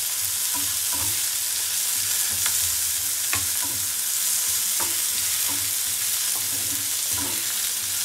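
Sliced onions sizzling in hot oil in a non-stick frying pan, stirred with a wooden spatula. The spatula scrapes and knocks against the pan about every half second over a steady sizzle.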